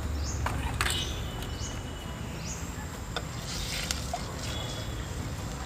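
A few light clinks, like a spoon on a cooking pot, over a low steady rumble, with birds chirping several short, high rising chirps in the background.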